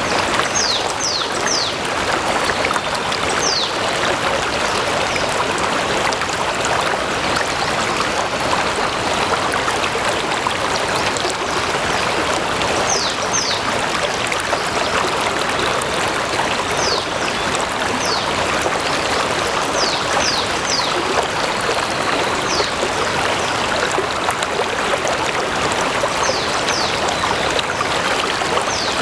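Stream water flowing steadily over stones. Short high chirps that fall in pitch come now and then in runs of two to four, most of them in the second half.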